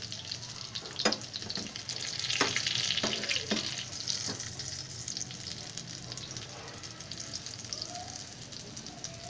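Breaded chicken patties sizzling as they shallow-fry in hot oil in a pan. In the first few seconds a metal spatula clicks and scrapes against the pan as the patties are turned, and the sizzle grows louder for a moment about two to three seconds in.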